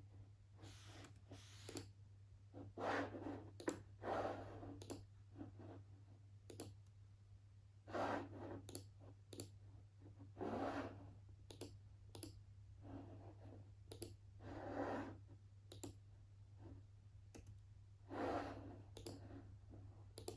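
Desk work at a computer: scattered sharp clicks of a mouse and keyboard, with about six louder half-second scratchy strokes, over a steady low hum.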